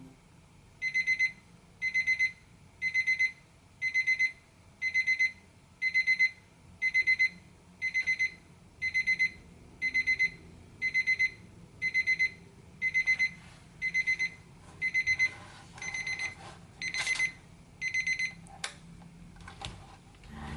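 Seiko QHE189 alarm clock's electronic alarm sounding: a high pulsed beep repeating about once a second. It stops near the end, followed by a couple of sharp clicks.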